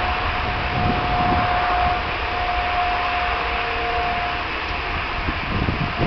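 Boeing 777's twin jet engines at take-off power during the take-off roll: a steady rush of jet noise with a high whine held on one pitch, and an uneven low rumble underneath.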